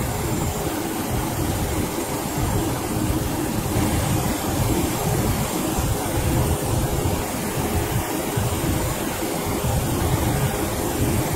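Steady helicopter engine and rotor drone heard from on board, mixed with rushing wind, with a faint steady hum over it.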